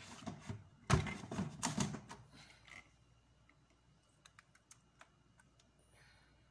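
Plastic food-processor bowl clattering as it is handled, with a loud clunk about a second in. Then faint spoon clicks and scrapes against the bowl as blended tomato pulp is scooped out.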